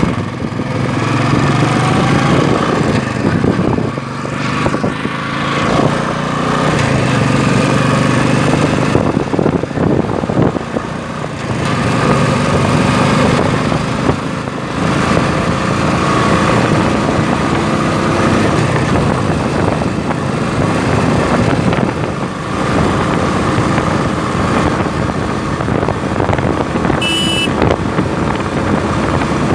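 Royal Enfield Classic 350's single-cylinder engine running under way as the bike accelerates to speed, its note dipping briefly a few times. A short high-pitched sound cuts in once near the end.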